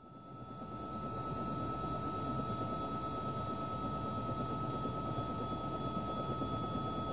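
Steady drone of an aircraft engine that fades in over about the first second and then holds, with a thin steady high tone running over it.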